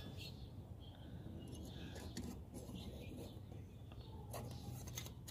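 A few faint clicks and scrapes of thin steel plates being slotted together by hand while assembling a small flat-pack fire pit, most of them near the end, over a low steady background hum.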